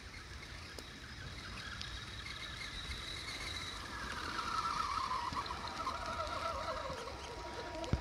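Radio-controlled car's motor whining, its pitch wavering up and down with the throttle, growing louder to a peak around the middle and easing off near the end.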